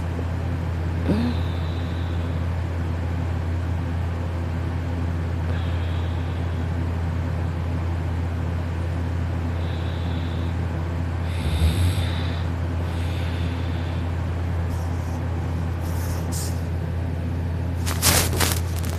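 A steady low hum, with faint soft breaths of a sleeping person every few seconds. A cluster of sharp knocks comes near the end.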